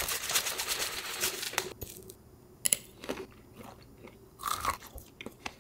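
Crushed Hot Cheetos poured out of a crinkly snack bag, their crumbs pattering down for about the first two seconds, then a few separate crunches as the spicy chip-covered avocado is eaten.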